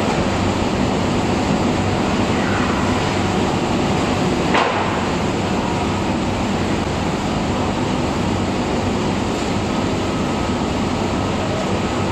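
Steady factory noise of an automatic powder coating line: booth extraction fans and spray air running with a faint machine hum. A brief sharp sound cuts in about four and a half seconds in.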